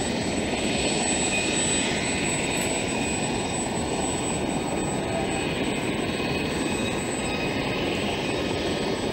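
Steady roar of a jet aircraft in flight, a Tornado F3 with its twin RB199 turbofans approaching the airfield.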